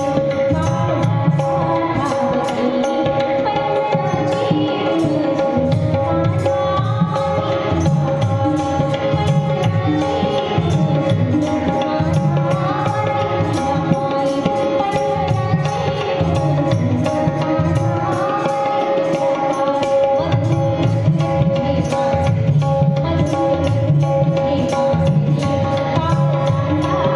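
Tabla playing a steady rhythm under a held drone note and a melody line that glides in pitch.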